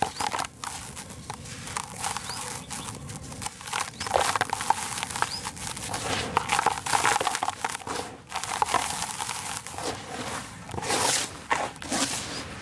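Dry sand-and-cement lumps crushed and crumbled by hand into loose powder: an irregular gritty crunching and crackling mixed with sifting sand, with louder crunches now and then.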